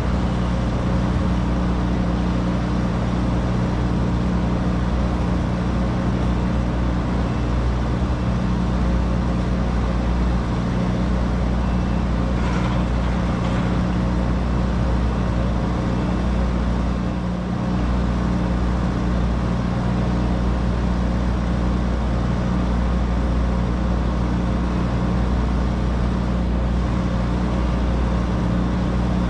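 Steady low hum of a car driving in city traffic, a constant engine and road drone with traffic noise over it and a brief dip about halfway through.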